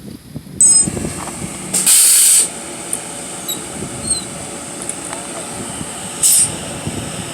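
A large vehicle running, with two loud hisses of released air from its air brakes: one about two seconds in, lasting under a second, and a shorter one about six seconds in.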